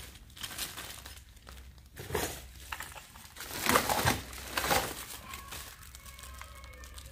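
Clear plastic packaging crinkling and rustling in several irregular bursts as tools are handled and taken out of their wrapping.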